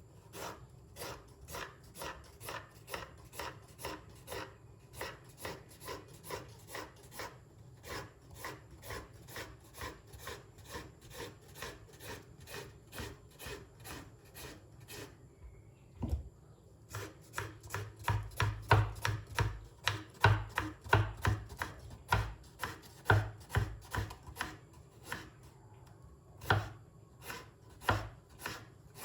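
Knife chopping on a cutting board in a steady rhythm of about three cuts a second, turning louder and heavier with thuds on the board in the second half.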